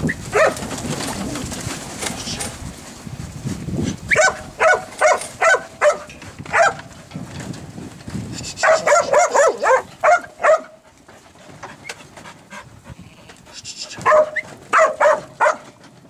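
A sheepdog barking in runs of short, sharp barks while working sheep in a yard, the quickest run about halfway through. The barking is the dog driving the sheep.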